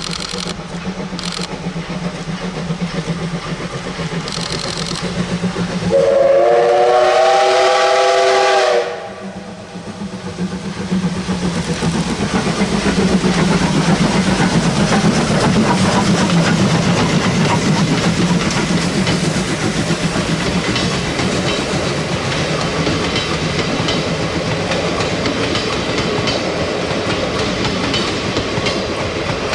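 Steam locomotive D51 498 sounds its whistle about six seconds in, one chord held for about three seconds. Then the train passes close by, with the steady rumble and clickety-clack of its coaches' wheels over the rail joints, loudest a few seconds after the whistle.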